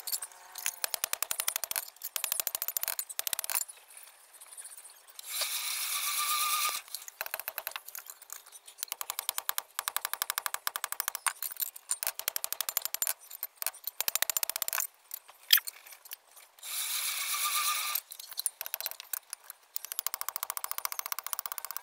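Hand tools working a hot steel blade: rapid runs of light metal-on-metal taps, with a single louder strike about 15 seconds in. Twice, at about 5 seconds and about 17 seconds, the taps give way to a rasping noise that lasts about a second and a half.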